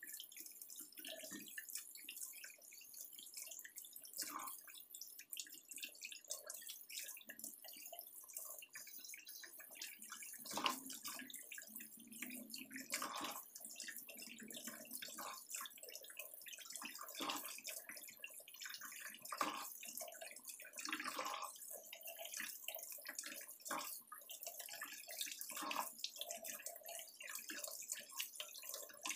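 Kitchen tap running steadily into a stainless steel sink, the stream splashing and dripping irregularly off hands as something is rinsed under it.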